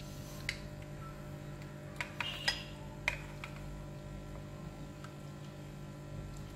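A metal slotted spoon stirring broth in a glass pot, clinking against the glass about five times in the first few seconds. A steady low hum runs underneath.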